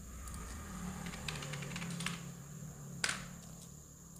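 Computer keyboard keys and mouse clicks: a few scattered taps, the sharpest one about three seconds in, over a steady low hum.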